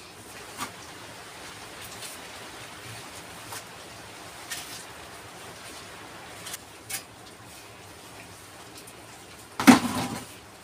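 Steel masonry trowel working mortar on a stone sink base: scattered light scrapes and taps, with one louder clatter near the end.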